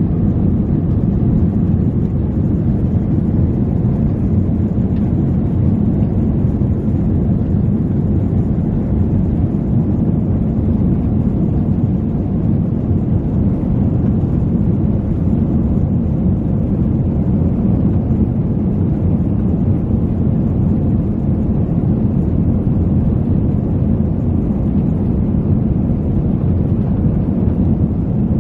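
Steady low rumble inside an airliner cabin as the plane taxis on the ground.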